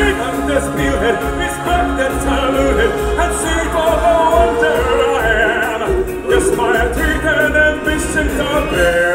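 Live stage-show music with several voices singing over a deep, pulsing bass.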